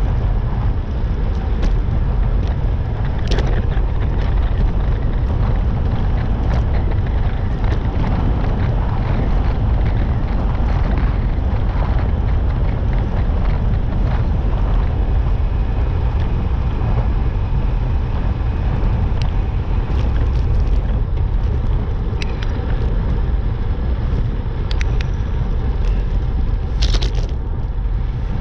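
Steady wind rumbling on the microphone of a moving rider, with road noise underneath. A few sharp clicks here and there and a short hiss near the end.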